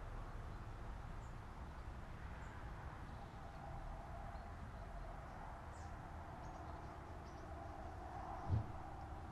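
Outdoor ambience: a steady low rumble with a few faint, short bird chirps, and a single soft low thump about eight and a half seconds in.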